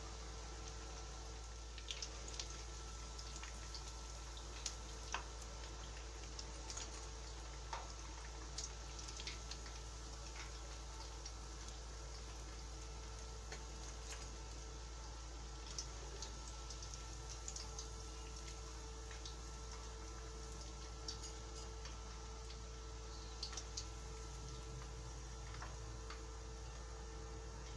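Hot oil sizzling quietly in a wok as coated bread slices shallow-fry, with scattered small pops and crackles every few seconds.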